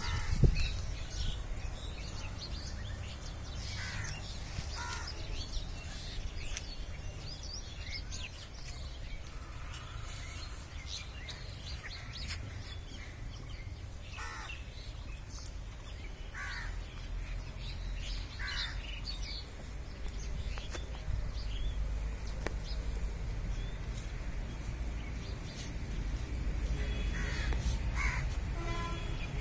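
Crows cawing now and then, with other birds chirping, over a steady low rumble.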